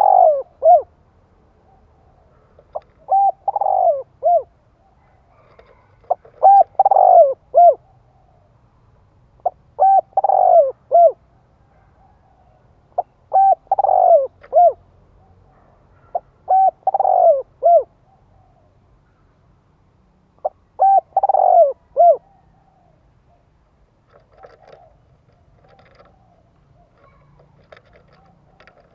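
A spotted dove cooing in repeated phrases, about one every three and a half seconds. Each phrase is a few short coos around a longer, louder falling coo. The calling stops about 22 seconds in, leaving faint scattered noises.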